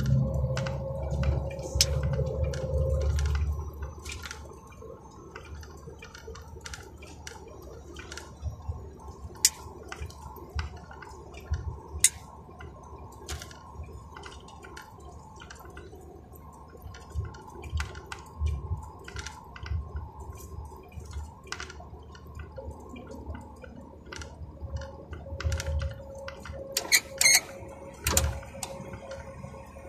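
Iveco truck cab on the move: low engine and road drone, loud for the first few seconds and then dropping to a quieter steady hum, with many scattered sharp clicks and rattles throughout.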